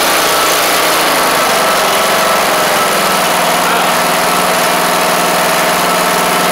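The freshly swapped-in 19.5 hp Briggs & Stratton engine of a Craftsman LT1500 lawn tractor running steadily just after its first start. Its speed picks up slightly about a second and a half in, then holds.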